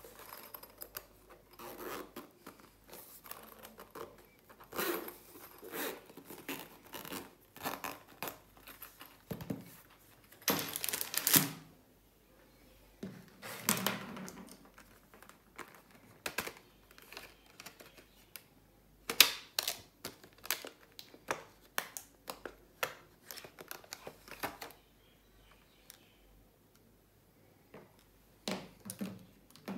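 Clear plastic packaging crinkling and rustling as it is handled, with small clicks and taps of the stationery, in irregular bursts and a few louder crackles.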